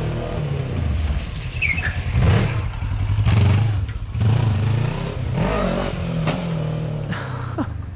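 Kawasaki Versys 650 parallel-twin motorcycle engine revving up and easing off several times as the bike rides in, turns close by and rides away.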